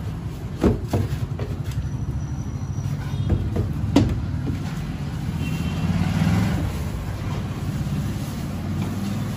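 Plastic bag rustling and a few sharp knocks as a small boxed desktop aquarium is lifted out and unwrapped, the sharpest knock about four seconds in, over a steady low rumble.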